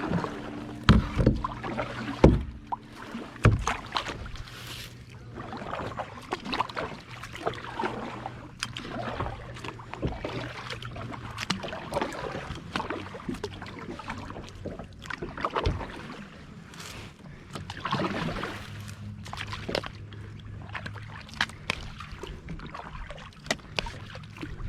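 Kayak being paddled through small waves: paddle splashes and water slapping, with irregular sharp knocks of the paddle against the hull.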